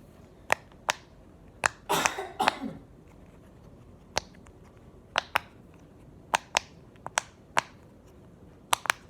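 Sharp clicks from the loud side of a handheld fidget toy, pressed about a dozen times at an uneven pace, with a short scraping burst about two seconds in.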